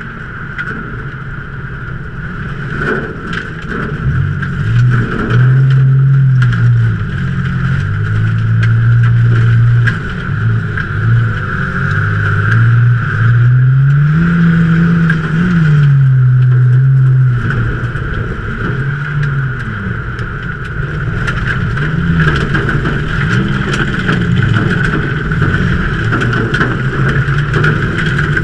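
A 2003 Ford Taurus V6 race engine heard from inside the car at racing speed. The engine note climbs and drops again and again as the driver accelerates and lifts.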